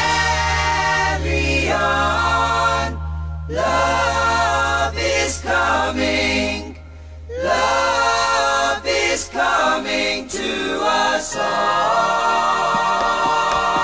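Several voices singing sustained phrases in close harmony, with brief pauses between phrases about 3 and 7 seconds in. A held low note lies under the voices and drops out about halfway.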